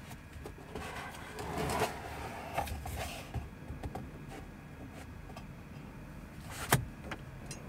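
Cardboard model-kit box being opened and its contents handled: scraping and rustling of the lid and packing over the first three seconds, then quieter handling, with one sharp knock near the end.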